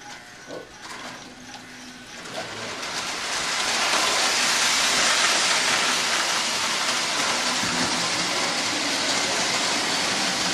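Model train set's electric whistle blowing: a breathy, steady hiss that builds up over a second or two about two seconds in, then holds.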